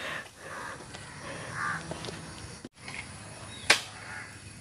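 Caw-like bird calls, then a single sharp knock about three-quarters of the way through.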